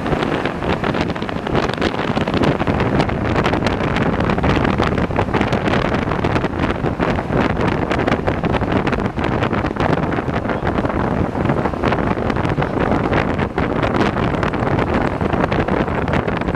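Wind buffeting the microphone while riding in an open-sided amphibious duck boat driving on land, with the vehicle's engine and tyres running steadily underneath.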